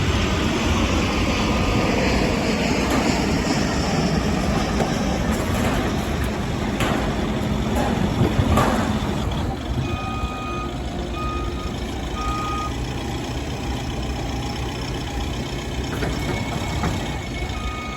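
A heavy vehicle's engine running, with a couple of knocks partway through. From about halfway in, a reversing alarm beeps in short, uneven pulses.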